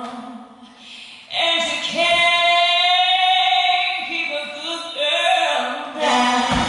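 Recorded song with a woman singing: after a brief lull she holds one long note with vibrato, and the fuller accompaniment comes back in near the end.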